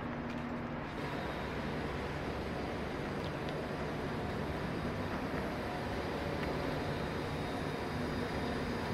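Steady low rumble and hiss of outdoor vehicle noise, such as idling buses and distant traffic, with a faint high steady tone above it and no distinct events.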